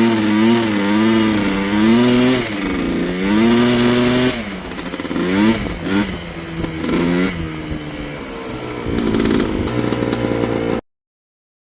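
Yamaha Blaster ATV's single-cylinder two-stroke engine revving up and down in uneven surges, then a few short throttle blips before it settles lower; the sound cuts off abruptly near the end.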